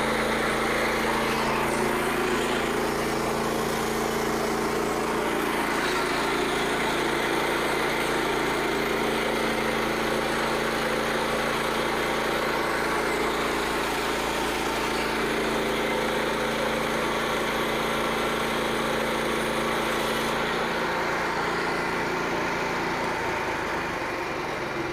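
Portable band sawmill's gasoline engine running steadily under load as the band blade saws through a log. About 20 seconds in the sound changes and eases slightly as the blade comes out of the end of the cut, running smooth with no snap up or down.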